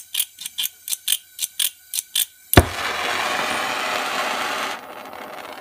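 A hand-held flint striker clicking about a dozen times, roughly five a second, to light a gas torch; the torch catches with a sharp pop about two and a half seconds in and the flame then hisses steadily, dropping to a lower hiss near the end.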